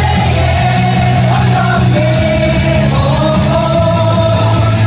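Loud cheering song playing over the ballpark loudspeakers, with singing and a heavy bass.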